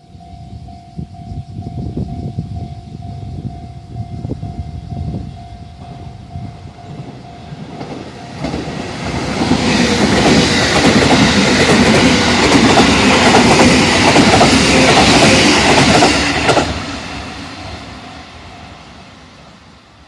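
JR Central 313 series electric multiple unit passing at speed on the tracks close by. It rumbles as it approaches, is loud from about eight seconds in as the cars go past with wheels running on the rails, drops off sharply about sixteen seconds in as the last car passes, then fades away.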